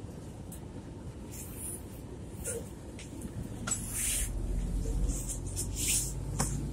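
Inside a city bus: low engine and road rumble, with a steady engine hum growing louder about halfway through. Over it come several short rustling scrapes as the phone is moved and brushes against clothing and the seat, loudest about four and six seconds in.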